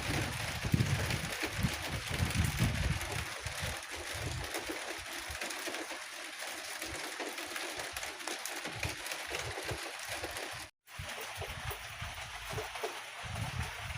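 Steady rain falling in a garden, a dense even hiss of drops. Low rumbles come and go over the first few seconds, and the sound cuts out for an instant about eleven seconds in.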